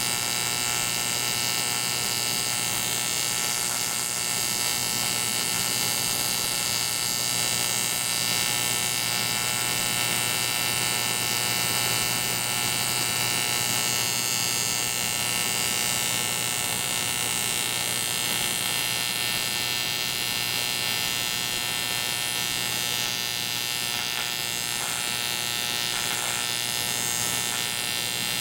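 Welding arc buzzing steadily over a constant hum while a crack in an aluminium motorcycle engine case is welded up.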